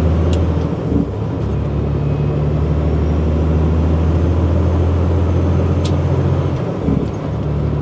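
Semi truck's diesel engine droning steadily under way, heard from inside the cab with road noise. The engine note briefly drops out twice, about a second in and again near the end.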